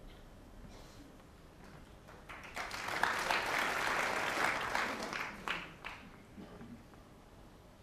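Audience applauding, starting about two seconds in, swelling, and dying away after about four seconds.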